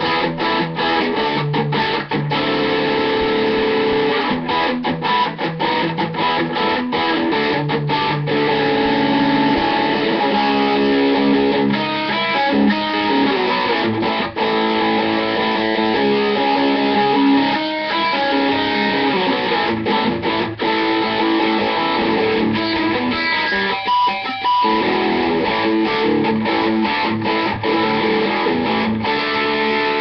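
Electric guitar played through a Peavey Bandit amplifier: a continuous run of picked notes and held chords.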